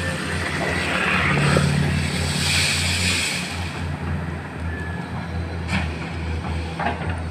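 Komatsu PC210 hydraulic excavator's diesel engine running with a steady low drone. A rushing hiss swells and fades in the first few seconds, and two short knocks come near the end.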